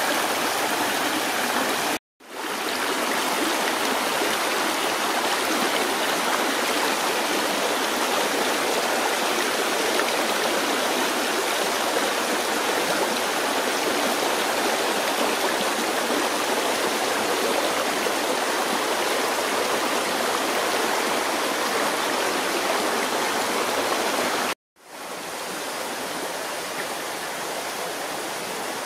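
Shallow rocky stream rushing and babbling steadily over stones. The sound breaks off for an instant twice, about two seconds in and near the end, and the water is quieter after the second break.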